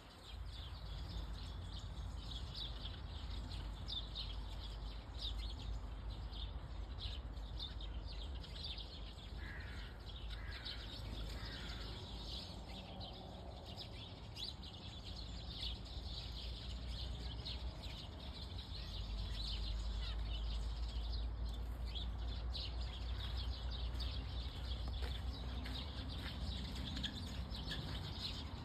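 Small songbirds chirping on and off throughout, with three short calls in a row about ten seconds in, over a steady low rumble that grows louder in the second half.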